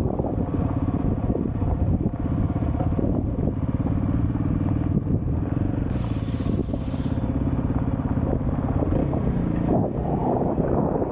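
A vehicle driving on a rough road: its engine runs steadily under a continuous low rumble from the tyres and road.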